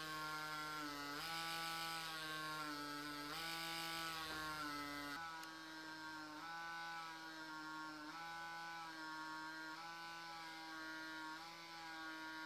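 Micropigmentation pen buzzing steadily while eyebrow hair strokes are tattooed, its pitch dipping slightly and recovering every second or so.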